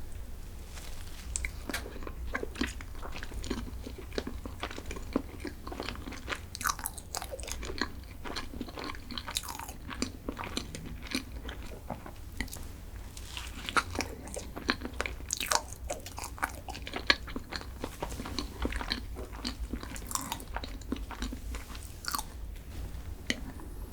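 Close-miked chewing and biting of chocolate snacks, with many sharp crunches and crackles coming irregularly throughout, over a steady low hum.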